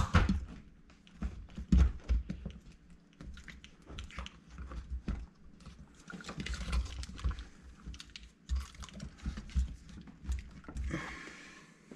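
Irregular clicks, knocks and dull thumps of plastic parts being handled as a dishwasher pump and motor assembly is worked into place and its tab lined up with its slot.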